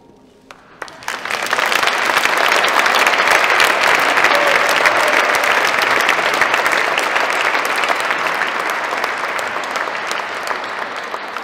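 Audience applauding: a few scattered claps, then full applause building about a second in, holding steady and tapering off near the end.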